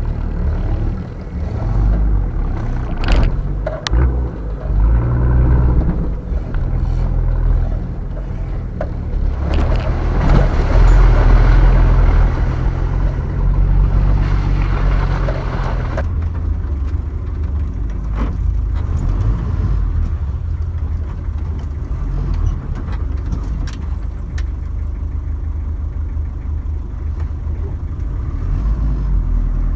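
Off-road 4x4's engine running, louder and pulling harder for several seconds about a third of the way in. A few sharp knocks come a few seconds in.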